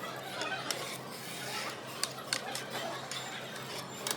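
A few sharp clicks and clinks of tableware at a meal table, scattered over a low murmur of room noise.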